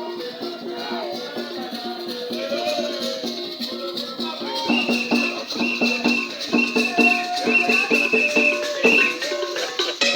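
Music with shaken rattles keeping the beat, the rattle strokes growing louder and more even about halfway through.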